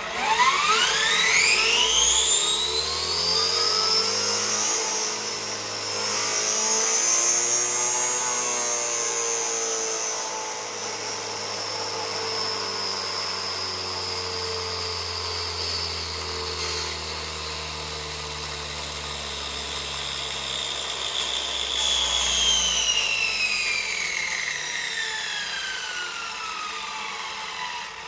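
Tesla compressor/turbine disc runner driven by two 2200 kV brushless RC car motors, spinning up with a steeply rising whine over the first few seconds, then holding a high whine over a low hum. About 22 seconds in it winds down with a steadily falling whine. The disc runner is not yet balanced.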